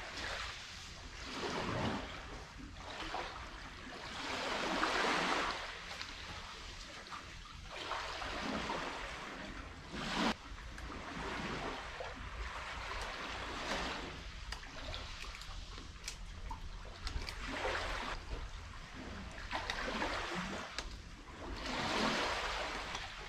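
Small sea waves washing onto the beach, swelling and falling back every few seconds over a low steady rumble, with a sharp knock about ten seconds in.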